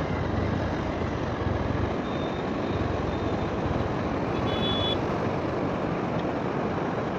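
Steady rushing roar of a large volume of river water pouring through a dam.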